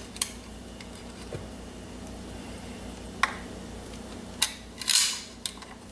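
A few sharp small clicks and a brief scrape as a Glock magazine spring and an extended base pad are handled and fitted by hand, over a steady low hum.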